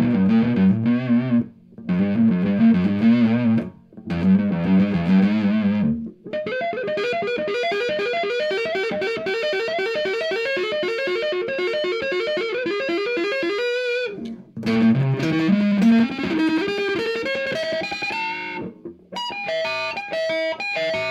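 P90-equipped solid-body electric guitar on its neck pickup with the tone knob rolled off, played through a small tube amp with the gain at maximum. It plays short chopped chord phrases with brief gaps, then several seconds of fast single-note picking. After a short break it plays a run of notes climbing in pitch, then more picked notes.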